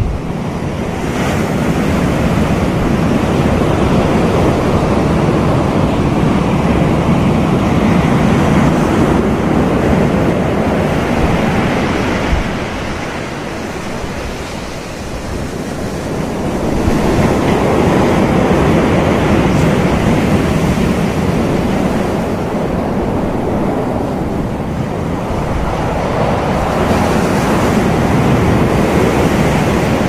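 Small surf breaking and washing up a sandy beach, a steady rush of foam that swells and ebbs, dipping quieter for a few seconds about halfway through. Wind rumbles on the microphone underneath.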